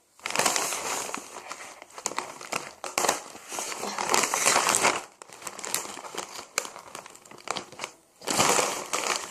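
Plastic snack bag crinkling and rustling as it is handled and opened, with a short pause near the end.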